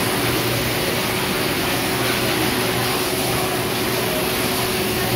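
Overhead-drive sheep-shearing handpiece running as it cuts through a sheep's fleece: a steady mechanical hum.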